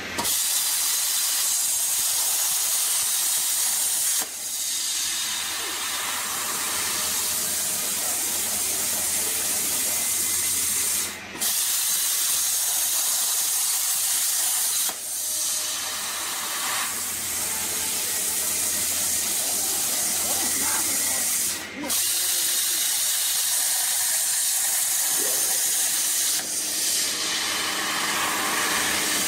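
CNC plasma cutter torch cutting steel plate: a loud, steady hiss of the plasma arc, dropping out briefly a few times, most sharply twice.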